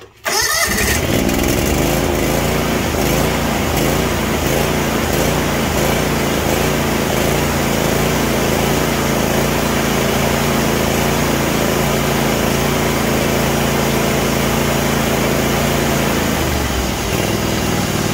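Kawasaki FH500V V-twin engine on a John Deere LX277 riding mower starting almost at once, then running steadily with a new ignition coil and wiring harness fitted. About sixteen seconds in, the engine note drops as it is throttled back.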